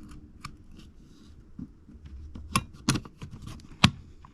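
Small clicks and snaps of a Milwaukee AutoLock tape measure's parts being handled and fitted back together by hand, with a few sharper clicks in the second half.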